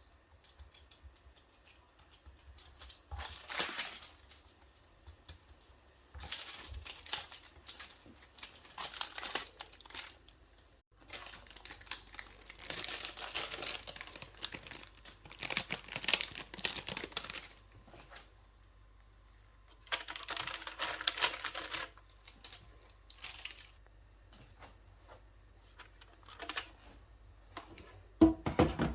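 Repeated bursts of crinkling and rustling, each lasting a few seconds with quiet gaps between, as of packaging or paper being handled. A louder knock comes near the end.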